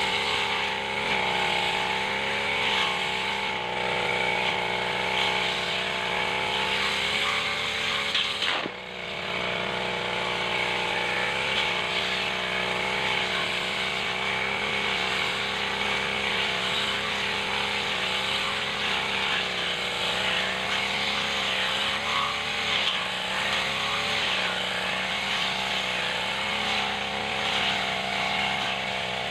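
Backpack brush cutter's engine running at cutting speed while the cutting head slashes through weeds and wet grass, its pitch wavering with the load. About nine seconds in it briefly drops off before picking up again.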